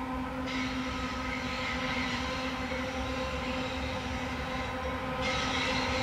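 Freight train's lead diesel-electric locomotives approaching at a distance: a steady engine drone holding one pitch, growing a little louder about five seconds in.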